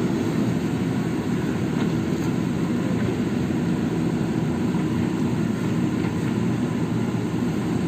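JCB backhoe loader's diesel engine running steadily under working load.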